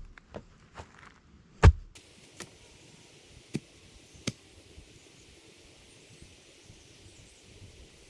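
Sharp, irregular chopping strikes, like a blade biting into wood: the two loudest come in the first two seconds and a few fainter ones follow. A steady high hiss sits in the background from about two seconds in.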